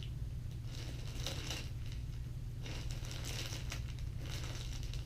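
Plastic bags of soft-plastic fishing baits crinkling as they are handled, in two stretches of rustling, over a steady low hum.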